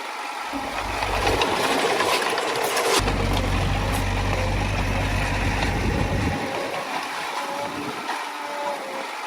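Heavy earthmoving machine's diesel engine working. It runs louder for most of the stretch and eases off about six seconds in.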